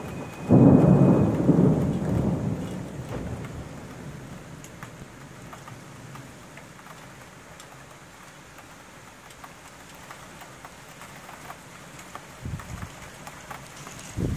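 A loud thunderclap about half a second in that dies away over the next few seconds, over steady rain. A few short low thumps come near the end.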